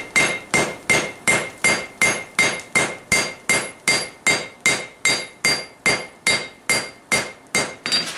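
Hand hammer striking a glowing, flux-coated steel billet on an anvil in a steady rhythm of about two and a half blows a second, each blow ringing. This is a forge-welding pass setting the layers of the billet together.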